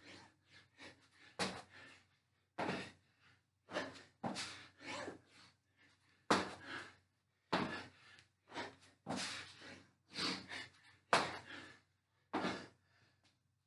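A person doing burpees: an irregular series of short thuds and scuffs as hands and feet land on the floor.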